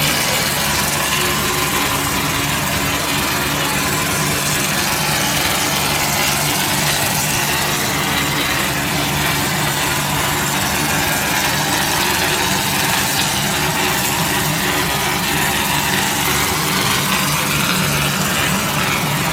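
Wall plastering machine running steadily: an even motor hum with a constant hiss over it, unchanging throughout.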